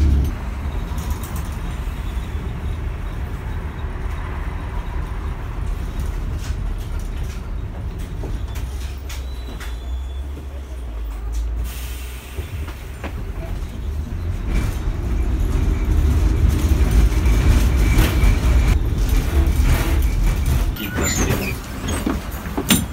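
LVS-86K articulated tram running on its rails, heard from inside the car: a steady low rumble of wheels and running gear. It eases about halfway through and swells again, with a few sharp knocks near the end.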